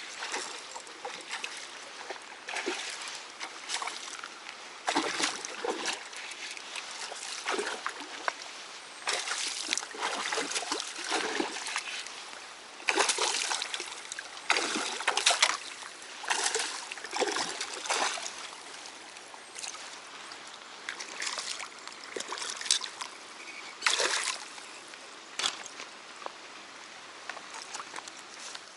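Water splashing and sloshing in irregular bursts, some short and some lasting a second or more, with stronger bursts around 13 to 16 seconds in and again near 24 seconds.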